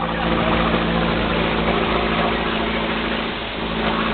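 A man snoring loudly and continuously, a deep rough snore that sounds like a heavy diesel engine idling.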